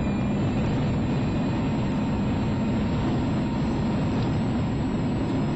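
Mitsubishi Lancer Evo 6.5 WRC rally car's turbocharged four-cylinder engine and gravel road noise heard from inside the cabin, running hard at a steady pace.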